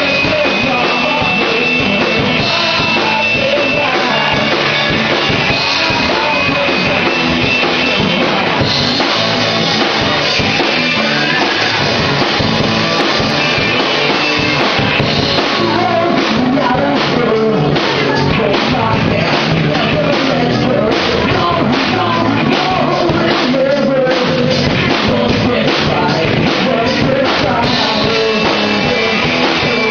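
Rock band playing a Britpop song live, with drum kit, guitar and singing; the drum and cymbal hits come thicker in the second half.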